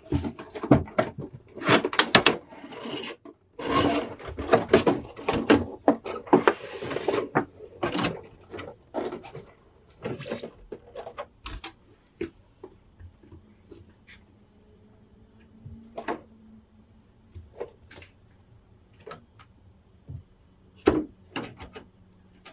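Cardboard figure box with clear plastic window film being handled and opened: dense crinkling, sliding and tapping of card and plastic for about the first twelve seconds, then only scattered taps and clicks.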